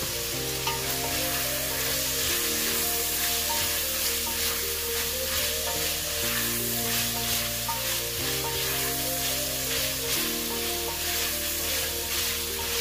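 Cubed pork sizzling as it browns in an enameled cast-iron pot, stirred now and then with a silicone spatula. Background music with slow chord changes plays underneath.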